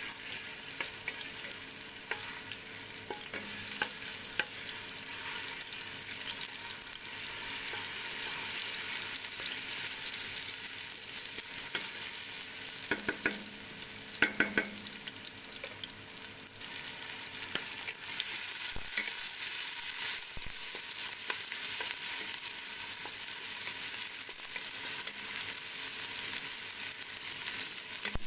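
Chopped garlic sizzling in hot oil in a stainless steel pot while a wooden spoon stirs it: a steady high hiss with scattered small clicks, and a few louder knocks about halfway through.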